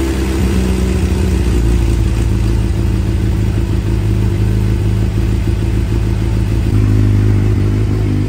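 2009 Suzuki GSX-R750's inline-four engine idling steadily just after starting. It holds its idle without hesitation now that a clogged fuel pump filter has been replaced.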